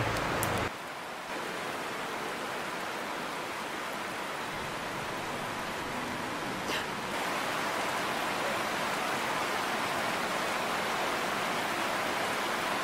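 A steady, even hiss with no voices, like rain or rushing water, and one faint tick about halfway through.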